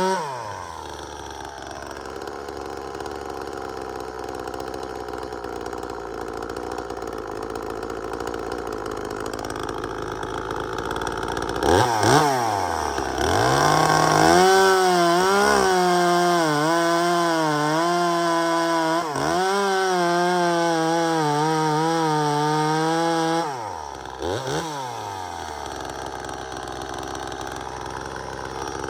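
Top-handle two-stroke chainsaw idling, revved twice, then held at high speed for about nine seconds with its pitch sagging and recovering as the chain cuts wood, before dropping back to idle. The saw has just been repaired and fitted with a new primer bulb.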